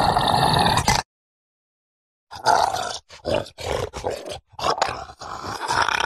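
Zombie growl sound effect: a rough, guttural voice growling and groaning in a run of short bursts with brief breaks between them. It starts about two seconds after a dense, loud effect cuts off abruptly about a second in.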